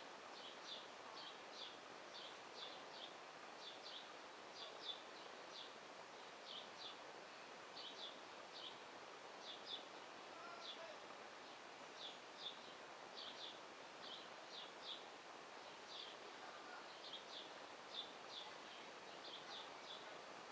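A small bird chirping steadily: short, high-pitched chirps, two or three a second and often in quick pairs or threes, over faint outdoor background noise.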